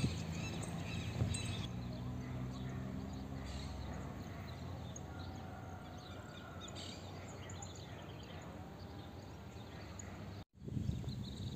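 Outdoor ambience of birds chirping over a steady background hiss, with a low steady hum in the first few seconds. The sound breaks off for a moment near the end.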